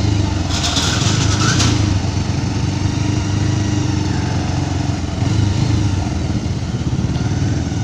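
Motorcycle engine running steadily while riding, with wind and road noise on the rider's microphone. A brief hiss rises about half a second in and fades before two seconds.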